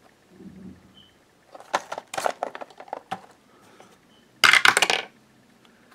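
A d20 die dropped into a Lego-brick dice tower, clattering down through it into the tray about four and a half seconds in. Lighter clicks and knocks of handling come before it.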